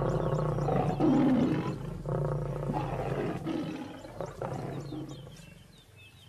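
A pride of lions growling and roaring as they fight each other over a kill, the growls loud and rough at first and fading away over the last couple of seconds.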